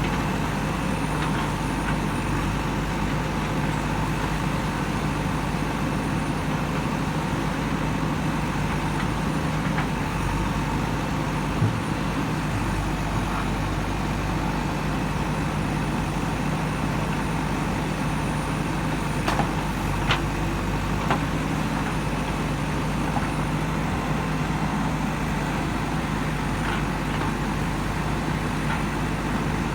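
Diesel engine of a JCB 3DX Super backhoe loader running steadily, with a few brief knocks about a third and two thirds of the way through.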